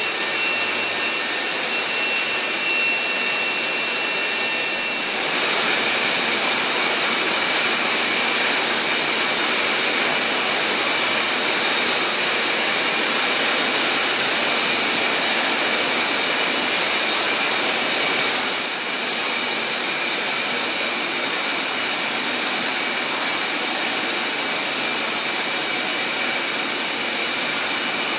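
Steady, loud rushing noise of distillery plant running in a still house, from fans, pumps or steam at the stills, with a couple of faint high whines for the first few seconds. It grows a little brighter about five seconds in and eases slightly about two-thirds of the way through.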